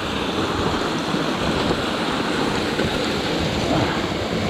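Mountain stream water rushing steadily, close by.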